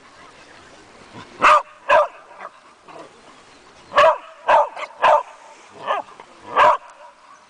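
A mixed-breed dog barking: about seven short barks, a pair and then a quicker run of five.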